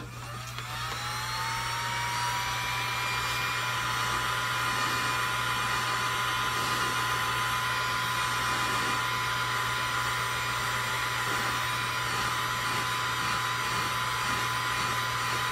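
Electric heat gun switched on and blowing hot air onto the top layer of a soy wax candle to melt it. Its motor whine rises over about the first second and a half, then runs steadily.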